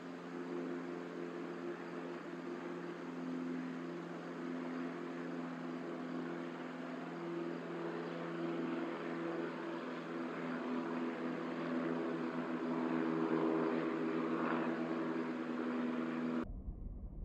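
A steady engine drone with several held tones, swelling slightly louder past the middle, then cutting off abruptly near the end.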